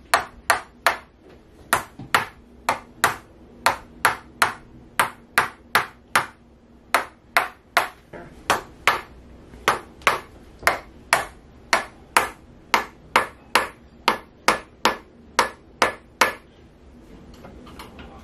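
Tok sen hammer massage: a red mallet tapping a stick held against a person's back, giving sharp knocks in a steady rhythm of about two to three a second. The tapping stops near the end.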